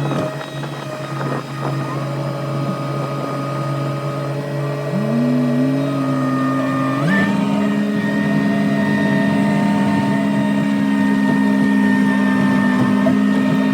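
Engine of heavy farm machinery running steadily; about five seconds in another engine note rises, and about seven seconds in the engine is throttled up to a higher steady pitch.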